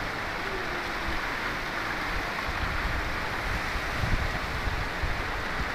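Heavy rain falling, a steady even noise with no distinct strokes.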